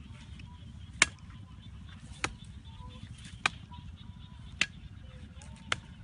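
Five sharp knocks, evenly spaced about one a second, over a low steady rumble.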